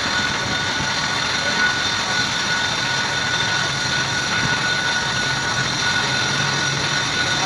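A steady machine whir with a constant high whine over it, unchanging throughout.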